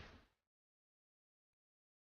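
Near silence: the tail of a loud noisy sound fades out within the first half second, then dead silence.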